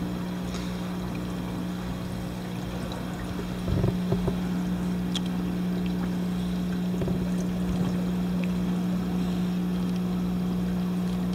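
Steady hum of aquarium equipment, such as an air pump or filter, with water trickling and splashing from the tanks. It gets a little louder about four seconds in, with a few soft knocks.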